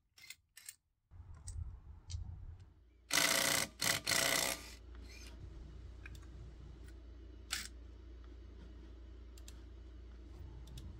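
Cordless impact driver on a trailer wheel's lug nuts, running in two short bursts about three seconds in, after a few light clicks of the socket going on. A low steady hum underneath.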